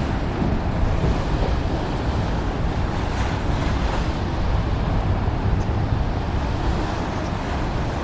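Steady wind rumbling on the microphone over the wash of waves at the water's edge.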